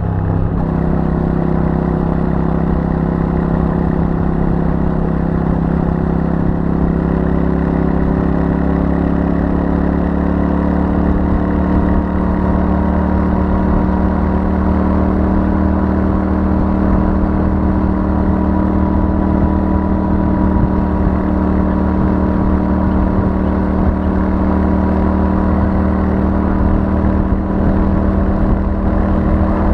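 Royal Enfield Super Meteor 650's 648 cc parallel-twin engine running through its stock exhaust at steady cruising revs, the engine note holding nearly constant.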